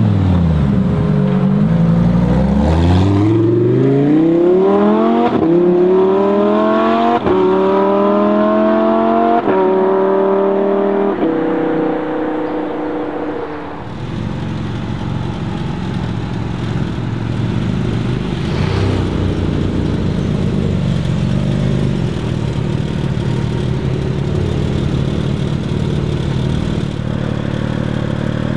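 Porsche 718 Cayman GT4 RS's naturally aspirated 4.0-litre flat-six accelerating hard through the gears: the engine note climbs in pitch again and again, dropping sharply at each quick upshift. About halfway through it cuts to a steadier, rougher engine sound with no clear rise in pitch.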